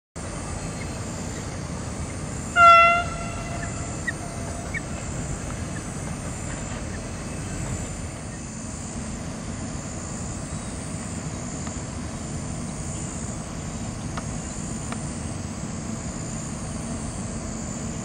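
Black swan giving one loud, short, clear-pitched call with overtones about two and a half seconds in. Steady outdoor background noise and a few faint chirps run under it.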